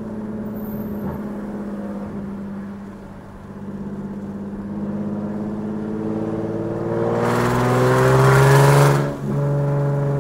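Straight-piped Nissan 370Z's 3.7-litre V6, heard from inside the cabin with the windows down, running steadily and then accelerating hard from about four seconds in, its pitch climbing into a loud rasp. The rasp cuts off sharply near the end, and the engine settles back to a steady drone.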